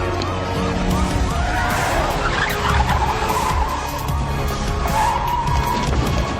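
Film soundtrack: music with a loud squealing, screeching sound effect over it from about a second and a half in, and another shorter squeal near the end.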